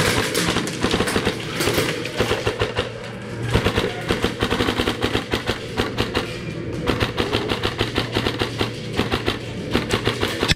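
Airsoft rifles firing rapid full-auto strings of shots, a fast crackle of shots with a short break about seven seconds in.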